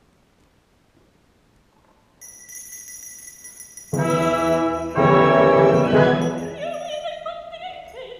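Opera orchestra playing. After about two seconds of near-quiet, high held notes come in, then loud full chords about four and five seconds in, which die away.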